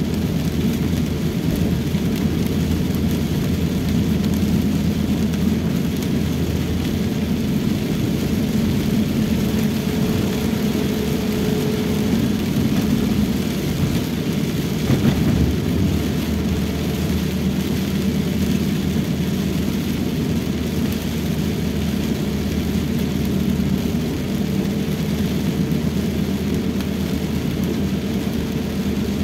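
Steady engine and tyre noise inside a Toyota Rush's cabin while driving on a wet road in heavy rain: a low hum with the hiss of rain and spray over it. There is a brief knock about halfway through.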